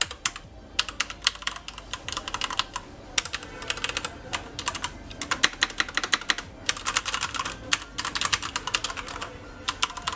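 Typing on a mechanical keyboard with Cherry MX Red switches: fast, dense runs of key clicks and clacks with brief pauses between bursts.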